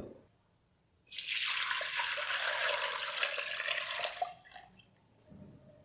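Chicken stock poured from a pot through a stainless-steel mesh strainer into a glass bowl. A steady splashing pour starts about a second in, runs for about three seconds, then tapers off.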